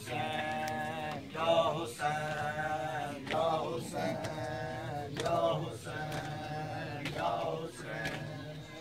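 Male voices chanting a noha lament in repeated, drawn-out melodic phrases, with matam chest-beating slaps about once a second.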